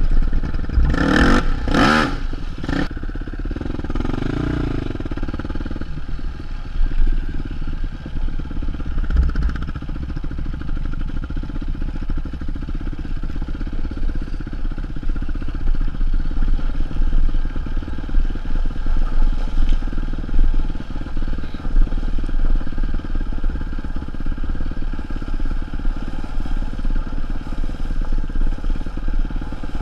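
Sport ATV engine running steadily while the quad rides a rocky dirt trail, heard close up from the rider's own machine, with a few loud bursts in the first three seconds.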